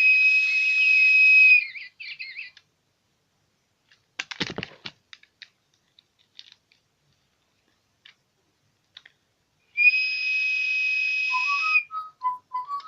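A whistle is blown twice in long, steady, high tones with breath noise, with a few handling clicks in between. Near the end a DigiBirds electronic toy bird starts answering with a tune of short beeping notes.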